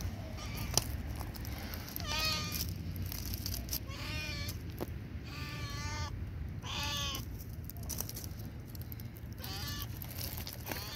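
Black cat meowing about five times, each meow short and bending in pitch, one or two seconds apart.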